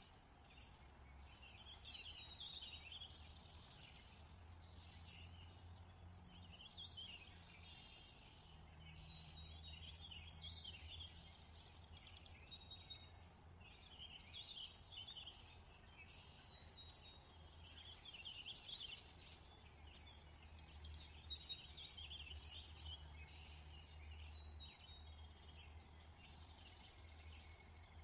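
Faint birdsong: several small birds chirping and trilling over a steady low hum.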